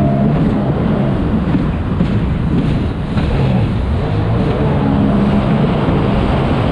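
Sea-Doo Spark personal watercraft's three-cylinder Rotax engine running at race speed, its note shifting in pitch, with heavy wind noise on the microphone.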